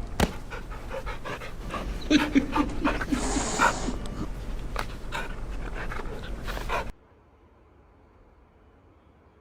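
A dog panting, with a few short pitched sounds in the middle. It cuts off suddenly about seven seconds in, leaving near silence.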